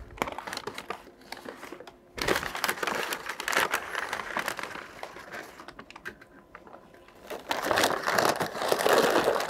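Paper wrapping crinkling and rustling as it is pulled open and peeled off a smoked goose, louder in two spells, about two seconds in and again near the end.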